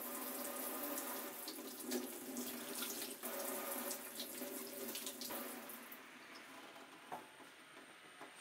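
Kitchen tap running into a sink, the stream splashing over a tomato held under it. The flow dies away about six seconds in, leaving a drip or two.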